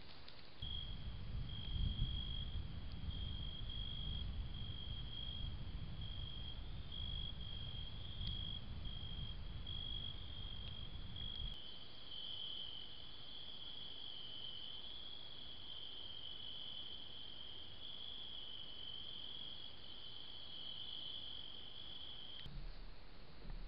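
Crickets chirping steadily at night, a high continuous pulsing trill. A low rumble lies underneath during the first half and stops about halfway through.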